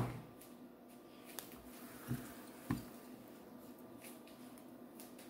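Quiet room tone with a faint steady hum and three soft knocks, at about one and a half, two and nearly three seconds in.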